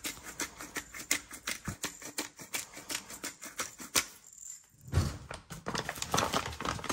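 Rapid, irregular crackly clicks as salt and pepper are crumbled by hand into a stainless-steel mixing bowl, pausing briefly after about four seconds. A low thump comes about five seconds in.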